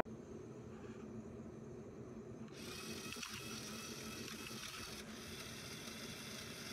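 Faint, steady whirring of the LEGO Technic Liebherr R 9800 excavator's electric motors and gear trains as the model is driven from the phone app. A higher-pitched whine joins about two and a half seconds in.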